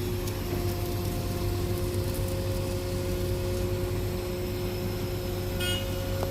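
Heavy construction machinery engine running steadily, a low rumble with a constant whine over it.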